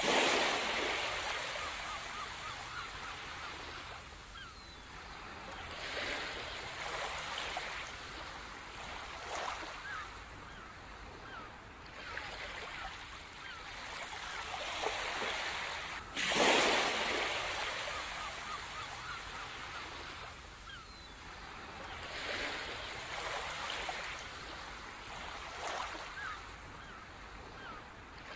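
Sea waves breaking on a beach, surging in and washing out every few seconds, with the biggest breakers right at the start and about 16 seconds in.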